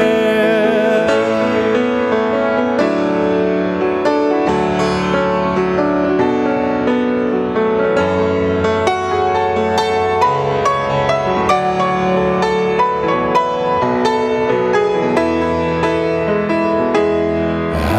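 Grand piano playing a slow, gentle instrumental passage between sung lines of a worship song. The singer's held last note, with vibrato, ends about half a second in.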